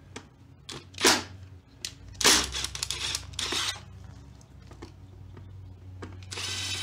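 Clicks and knocks of a hand and tool against the plastic air filter box of a scooter. Near the end a cordless driver whirs briefly on a cover screw.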